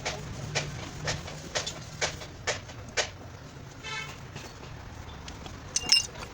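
Hammer blows on a damaged car body panel, about two sharp knocks a second, then a pause with a brief tone and a louder metallic clank near the end.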